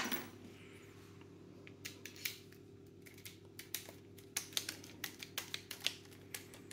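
Small motor-plate screw being turned by hand with a screwdriver into an airsoft rifle's plastic pistol grip: a knock right at the start, then from about two seconds in a run of light, irregular clicks and ticks as the screw is worked in.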